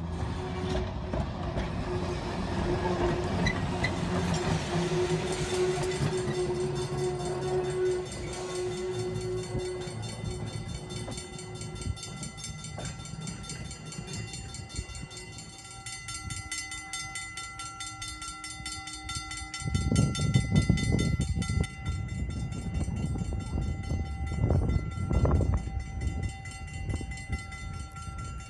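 Electric trolley car running along the track, with a steady whine of its motors and the rumble and clatter of steel wheels on the rails, loudest in two bursts in the second half.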